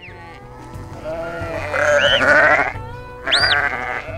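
A large flock of sheep bleating together, with several wavering voices at once. Three short, sharp whistle notes that rise and fall in pitch cut through, the last and highest about three and a half seconds in: a handler's herding whistle to the sheepdogs.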